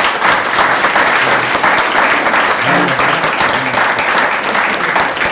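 Audience applauding steadily, many hands clapping at once, with a few voices faintly underneath.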